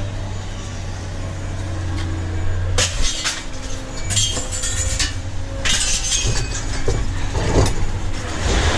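Scrap metal and glass being handled and knocked about while an appliance is stripped: about five separate clattering knocks and clinks, a second or more apart, over a steady low hum that fades after about three seconds.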